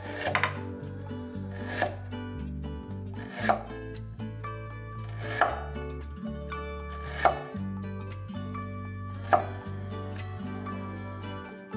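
Knife slicing ginger root on a wooden cutting board: a sharp knock of the blade on the board every couple of seconds, about six in all, over background music.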